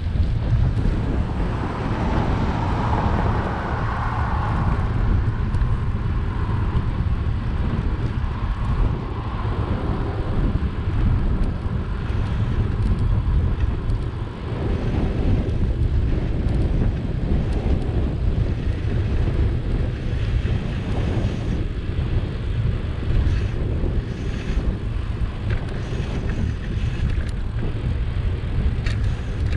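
Wind buffeting the microphone of a camera on a moving bicycle: a steady, loud low rumble, with road noise from the tyres underneath.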